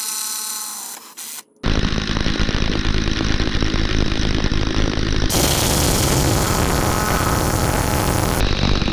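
A power tool running steadily, cutting in abruptly under two seconds in.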